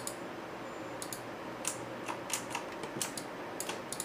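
Computer keyboard and mouse clicking at a desk: about a dozen short, sharp taps at irregular intervals.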